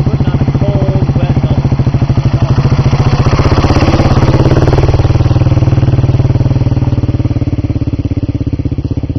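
BMW dirt bike's single-cylinder engine running with a rapid, even beat, revving up as it pulls away close by between about three and five seconds, then fading as it rides off.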